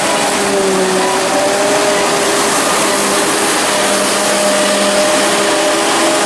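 Heavy harvesting machinery running steadily at work in a maize field: the forage harvester with its accompanying tractors, a loud, dense drone with several engine tones that drift slightly in pitch.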